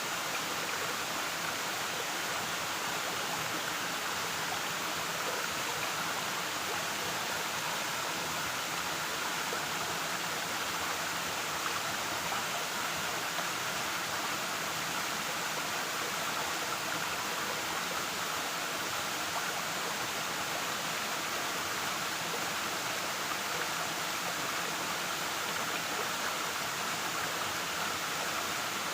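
Waterfall: water falling and rushing in a steady, unbroken roar of white noise.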